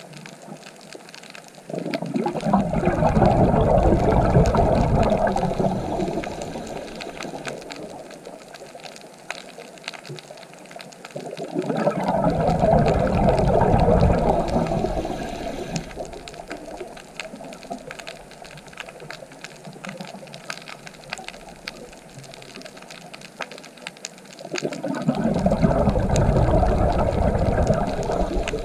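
Surging water that swells up and fades away three times, roughly ten seconds apart, over a steady lower rush.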